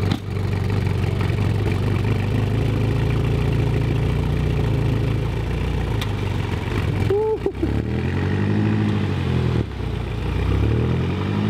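2018 BMW M6's twin-turbo V8 idling steadily, then revved up and let fall back twice in the last few seconds, with a short high squeal just before the first rev. Its note sounds a little off, which is put down, with some doubt, to the crash-damaged rear exhaust.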